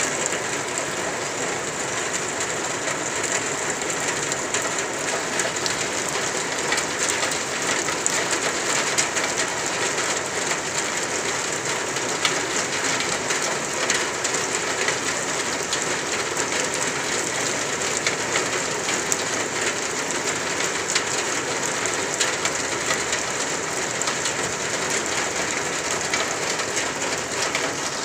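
Steady rain falling, a dense patter of drops on surfaces.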